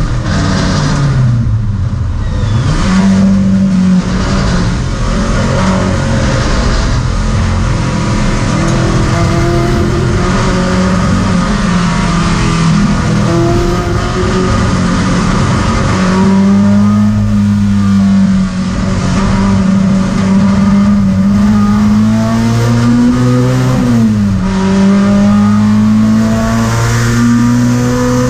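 Skoda 130 RS race car's engine heard from inside the cabin, driven hard around a circuit, its pitch climbing and dropping with gear changes and lifts, with one clear shift near the end.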